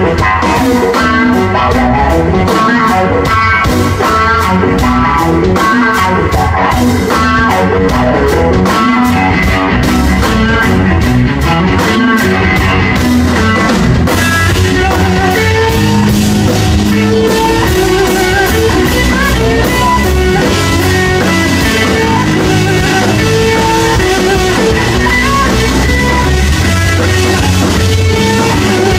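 Live blues-rock band: electric guitar played through a blackface Fender Super Reverb amp, with a drum kit and an electric bass. About halfway through the sound gets brighter and fuller, with more cymbal.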